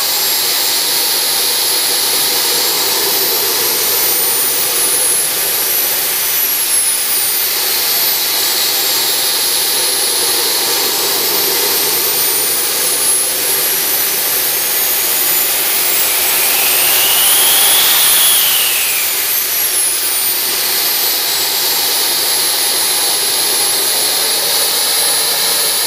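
Behotec J66 model jet turbine running on a test stand: a high whine over a steady rushing exhaust. It spools up and back down twice, a short rise about six seconds in and a bigger, louder one peaking about eighteen seconds in.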